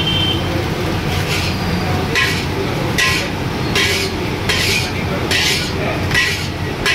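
Steel ladle scraping and knocking against a large iron wok while fried rice is scooped out and served onto a steel plate. The strokes come in a rhythmic series, roughly one every 0.8 seconds, over a steady low background rumble.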